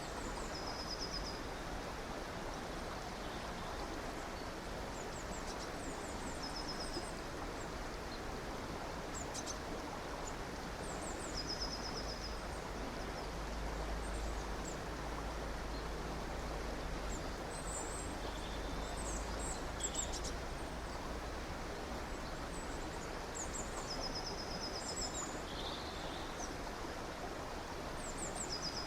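A river or stream running steadily, with small birds chirping high over it and repeating a short buzzy trill every few seconds. A low rumble swells for several seconds in the middle.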